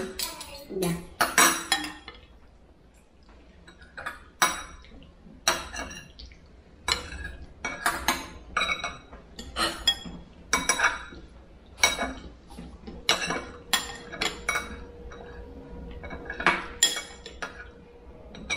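Cutlery clinking against dishes during a meal, in sharp, irregular clinks of about one or two a second.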